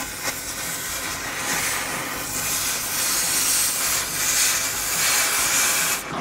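Oxy-acetylene cutting torch hissing loudly as its jet cuts through a rusted steel bumper bracket. The high hiss drops off near the end.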